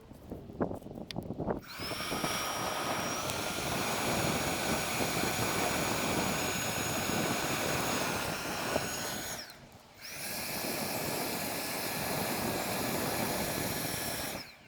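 A small motor-driven fan running with a loud rush of air and a steady high whine. It runs for about eight seconds, stops briefly, then runs again for about five seconds before cutting off abruptly.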